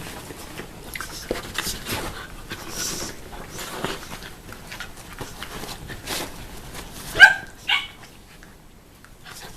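A Shiba Inu and a puppy play-fighting: scattered scuffling and small knocks, then two sharp, high barks from one of the dogs about seven seconds in.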